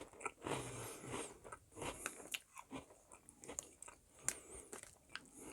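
Close-up mouth sounds of someone chewing Mini Cheddars, small crunchy baked cheese biscuits: faint, irregular crunches and crackles, with a few sharper crunches now and then.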